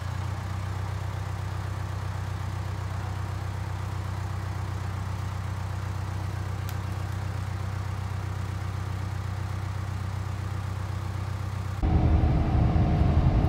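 Backhoe engine running steadily at a low, even hum. Near the end it becomes louder and rougher.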